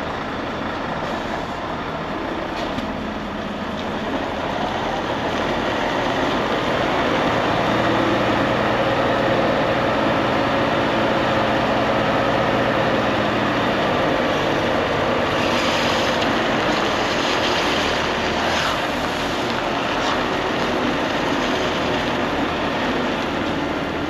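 Volvo FH540 truck's diesel engine running under light load while manoeuvring with a refrigerated trailer. It grows louder a few seconds in and eases off near the end, with a spell of hissing about two-thirds of the way through.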